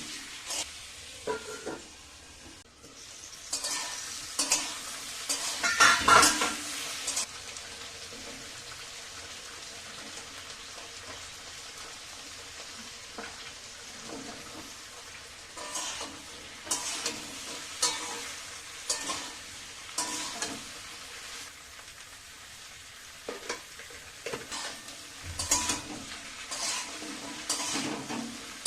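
Vegetables frying in oil in a pan with a steady sizzle, while a spatula stirs and scrapes against the pan every so often; the loudest stirring comes about six seconds in.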